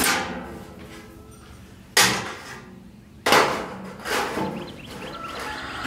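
Cut-off pieces of corrugated metal roofing panel (tin) clanking as they are set down and laid out: two sharp metallic clanks a little over a second apart, with lighter scraping and rattling of the sheets in between.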